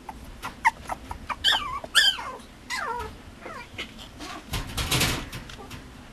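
Mame shiba puppy whimpering: a few short, high cries that fall steeply in pitch, about one and a half to three seconds in, among light clicks. A louder rustling noise follows about five seconds in.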